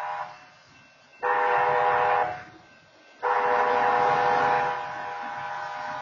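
BNSF locomotive's air horn sounding a chord of several tones at a grade crossing: the end of one blast, a short blast about a second in, then a long blast from about three seconds in. This is the short-then-long close of the standard long-long-short-long crossing signal.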